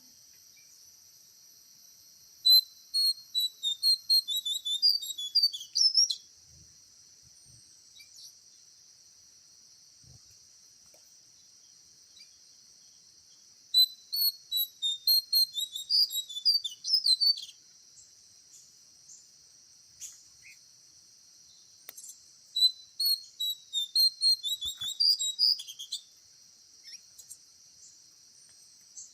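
A songbird calling in three bouts of rapid, high chirping notes, each bout about three to four seconds long and spaced roughly ten seconds apart. Under the calls runs a steady, high insect drone.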